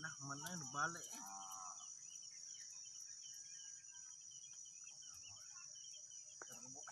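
Insects droning steadily at a high pitch, with brief voices in the first second and then one short pitched call; after that only the insect drone and faint scattered sounds.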